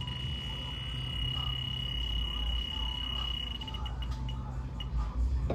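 Fieldpiece DR82 infrared refrigerant leak detector alarming: a steady high tone for about three and a half seconds, then breaking back into short beeps, signalling refrigerant at the probe tip. A low steady hum runs underneath.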